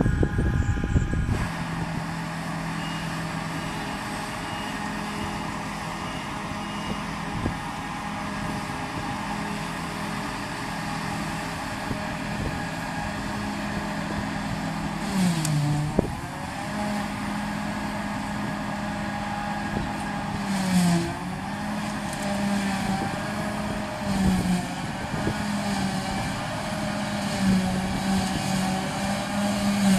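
Claas Jaguar 850 self-propelled forage harvester running under load in a heavy first cut of grass, a steady engine and chopper drone whose pitch dips briefly a few times in the second half. Wind buffets the microphone.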